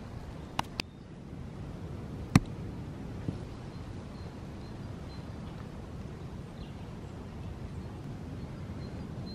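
Open-air ambience with a low steady rumble and faint bird chirps, broken by a couple of light clicks under a second in and one sharp knock about two and a half seconds in, then a softer one, as breaded meat patties are handled and set down on a wooden board.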